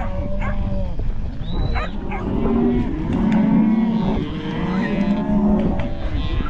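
A herd of cattle mooing, several long calls overlapping one another, most densely through the middle of the stretch.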